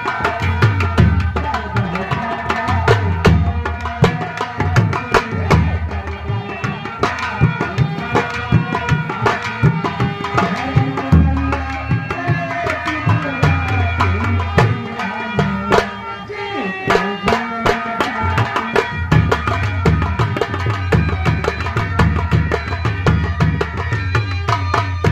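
Live folk-theatre accompaniment playing an instrumental passage: hand drums beat out a fast, steady rhythm under a sustained melody line.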